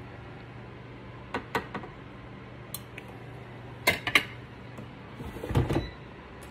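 Kitchenware being handled: a few light clinks about a second and a half in, a couple of sharper clacks near four seconds, and a short run of clattering near the end, over a steady low hum.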